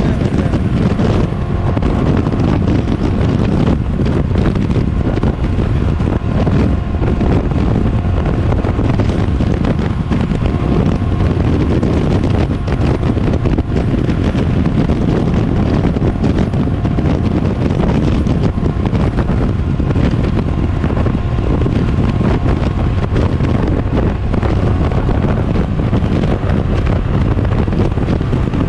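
Heavy wind buffeting on the microphone over the steady run of a 1983 Honda Sabre 750's V4 engine at highway speed.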